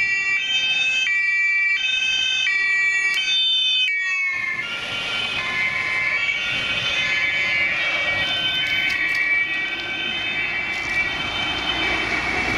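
German emergency-vehicle two-tone siren (Martinhorn) alternating between two pitches, each held for a little under a second. About four seconds in the sound changes to several overlapping siren tones over road noise.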